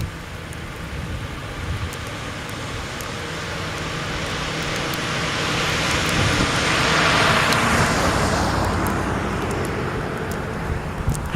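A road vehicle passing by: its tyre and engine noise rises to a peak about seven seconds in, then falls away with a dropping pitch.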